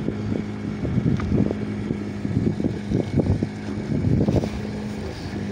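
An engine on board the fishing boat hums steadily, with wind buffeting the microphone in irregular gusts.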